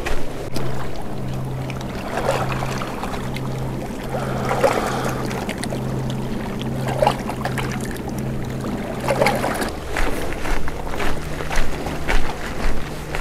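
Footsteps on a dirt and gravel lakeside trail, with a low hum pulsing steadily underneath until about three quarters of the way through.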